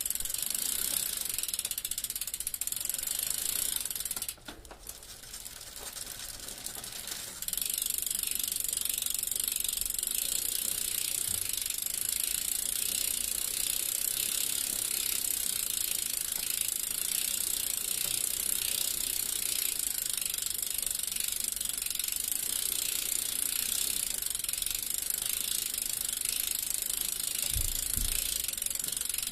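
Bicycle freewheel ratcheting in a fast, even run of clicks as the wheel turns without pedalling. The sound drops back for about three seconds starting about four seconds in, then carries on steadily.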